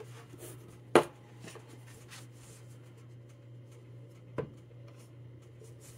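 Paper being slid and handled on a guillotine paper cutter, with a sharp clack about a second in and a softer one about three and a half seconds later, over a steady low hum.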